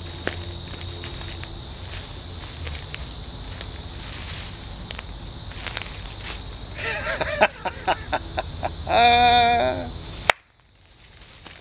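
A steady, high-pitched insect chorus, with a man's loud voice, laughing or calling out, over it about nine seconds in. The whole sound cuts off suddenly shortly after.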